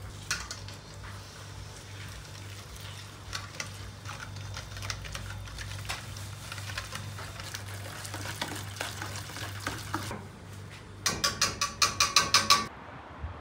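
Wire whisk beating a wet mixture in a stainless steel bowl, clicking and scraping against the metal. Near the end comes a quick run of loud, ringing strokes against the bowl, about five a second.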